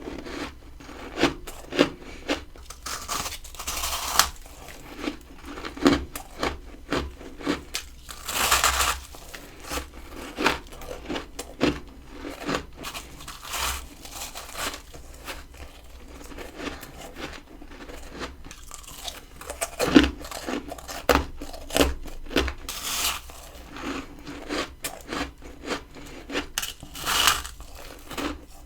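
A person biting and chewing crunchy freezer frost close to the microphone: a continuous string of irregular crunches, with a louder bite every few seconds.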